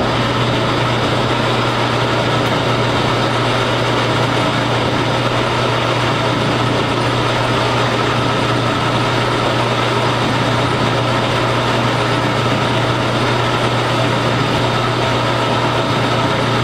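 Metal lathe running at a steady speed with a constant low hum as its parting tool cuts off a bolt held in the chuck.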